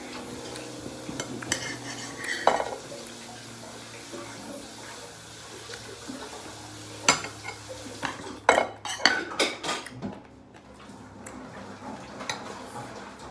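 Metal knife, fork and spoon clinking and scraping on a ceramic dinner plate as grilled meat is cut and eaten, with a ringing clink about two and a half seconds in and a quick run of clinks around eight to ten seconds in.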